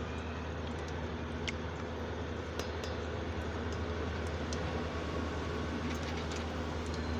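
Chicken cheese balls frying in oil over a low flame: a steady sizzle with scattered small ticks and pops, over a constant low hum.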